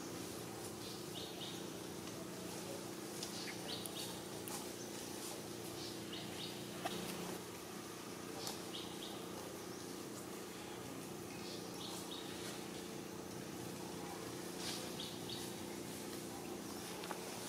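Outdoor ambience: short, high chirps in small clusters every couple of seconds over a steady low hum.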